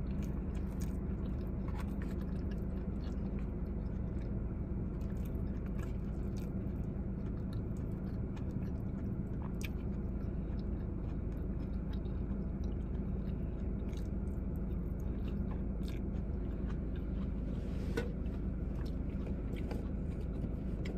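Close-up chewing and biting of a bowl of chicken, lettuce and vegetables, with scattered crisp crunches and small clicks of a fork against the fibre bowl, over a steady low hum inside a car.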